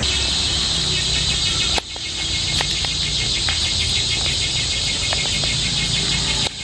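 A steady, high-pitched chorus of insects over a low rumble, with a few faint clicks.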